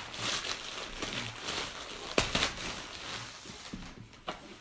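White plastic mailer bag rustling and crinkling as a box is pulled out of it, with one sharp knock about two seconds in.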